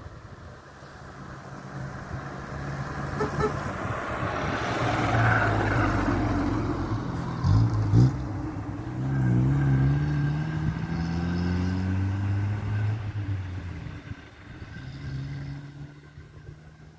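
Cars driving past on a road, their engines swelling to loudest in the middle with the engine note rising as they accelerate, and two short sharp bangs about halfway through. A quieter car approaches and fades near the end.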